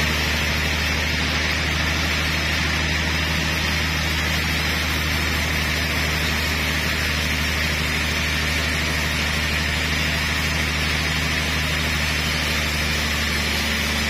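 Large Haita Iron Works band saw running steadily while resawing a trembesi (rain tree) slab: an even machine drone with a steady low hum under a hiss.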